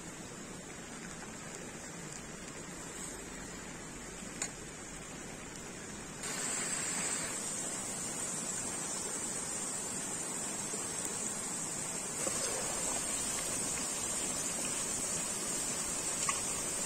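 Potato slices frying in hot oil in a pan over a wood fire: a steady high sizzle that comes in suddenly about six seconds in, after a stretch of faint outdoor background.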